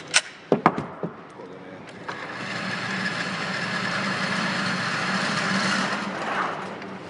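A few sharp knocks in the first second, then the electric target carrier's motor runs steadily for about four seconds, bringing the paper target up the lane to the shooter, and winds down near the end.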